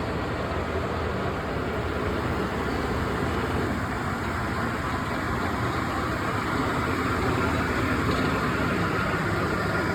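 Steady mechanical running noise, a low rumble with a hiss, growing slightly louder in the second half.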